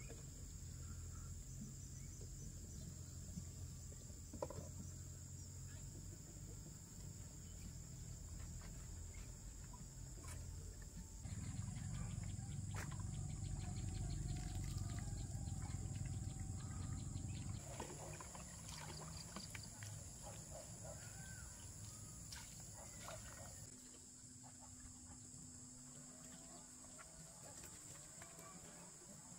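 Steady high-pitched chorus of insects, over a low rumble that swells for several seconds in the middle and fades near the end, with a few faint clicks.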